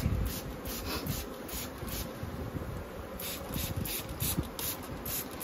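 Irregular short rubbing and scraping strokes, a few a second, on the wood of an open wooden beehive as it is worked, over a low handling rumble.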